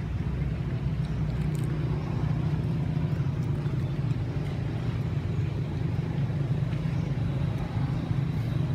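A steady low rumble that holds at one level, with no calls from the monkeys.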